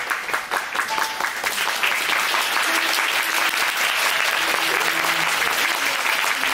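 Theatre audience applauding, the clapping growing a little louder and denser about a second and a half in.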